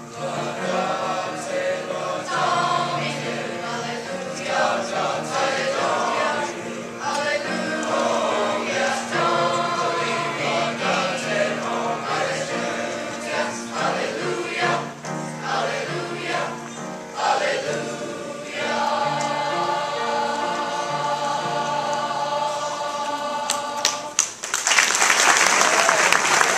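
A choir singing, ending on a long held chord, then an audience breaking into applause near the end.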